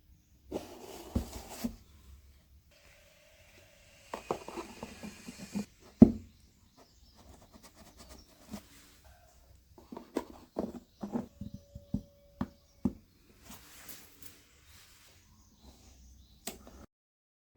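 Hands working on cardboard: irregular taps, knocks and rustles, with one sharp knock about six seconds in and a run of quick knocks later on.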